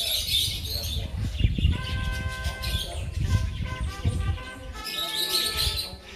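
Budgerigars in an aviary chirping and chattering in a fast high twitter, over a low rumble that stops about five seconds in.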